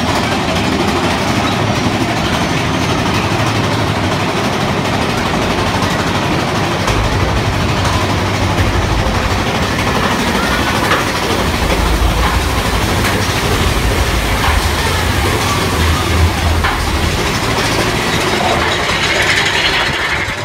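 Big Thunder Mountain Railroad mine-train roller coaster running along its track: a loud, steady rattle and rumble of the cars on the rails, the low rumble growing heavier about seven seconds in.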